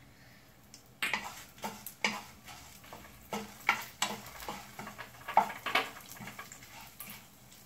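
Wooden spatula stirring dried red chillies and urad dal in oil in a nonstick frying pan. An irregular run of scrapes and light taps starts about a second in and dies away near the end.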